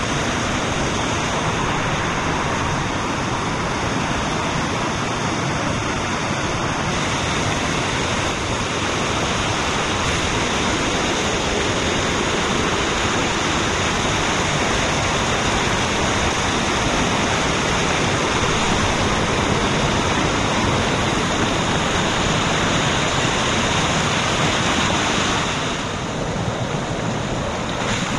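Waterfall rushing in a loud, steady roar of falling water. It eases a little for the last couple of seconds.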